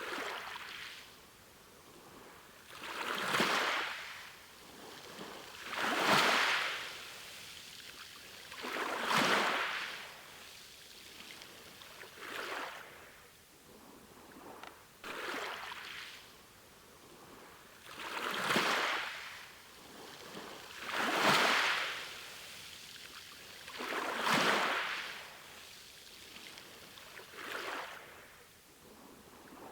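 Sea waves washing in one after another: a surge of hiss that swells and fades about every three seconds.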